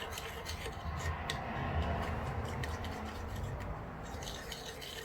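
A spoon stirring warmed honey and oil in a small container, scraping and clicking against its sides without a break, blending the oil into the honey.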